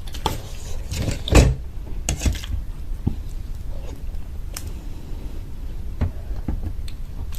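Someone biting and chewing crispy fried samosa close to the microphone: irregular crunches and mouth clicks, the loudest about a second and a half in.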